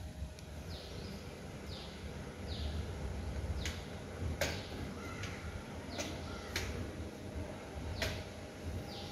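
Several sharp metallic clicks and knocks, about six spread over the later part, from hand tools and metal engine parts being handled on a motorcycle engine. In the first few seconds a bird calls four times with short falling notes.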